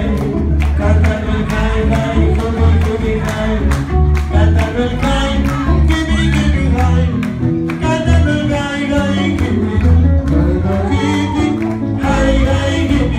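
Live Afro-Peruvian festejo from a small band: a singer over electric guitar and congas, with a steady, driving percussion beat.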